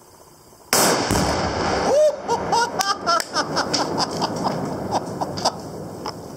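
A .300 Remington Ultra Magnum rifle shot sets off about 3 lb of tannerite: one sudden, very loud blast less than a second in, fading into a long rumbling tail. It is followed by bursts of laughter.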